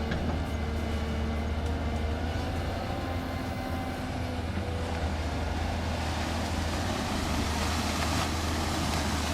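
Excavator's diesel engine running with a steady low drone, with a fainter whine above it.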